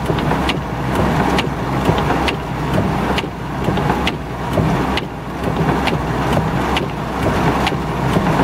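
Heavy rain drumming on a car's roof and windshield, heard from inside the car, with the windshield wipers sweeping and clicking about once a second. A low steady hum runs underneath.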